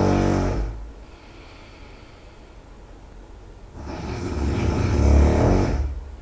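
A person snoring very loudly, in a slow breathing rhythm. A long rattling snore trails off about a second in, and after a pause of about three seconds another builds up and dies away near the end.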